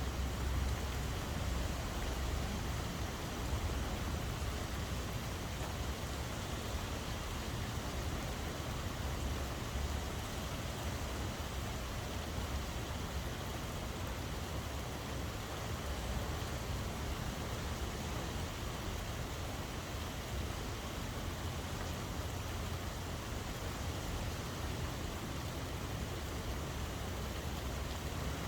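Steady rain falling, an even continuous hiss with a low rumble underneath.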